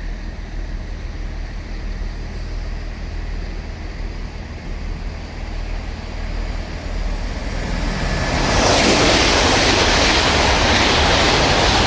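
Pair of coupled Class 387 electric multiple units passing through the station at speed without stopping. A steady low rumble builds about eight seconds in to a loud rush of wheel and air noise that holds to the end.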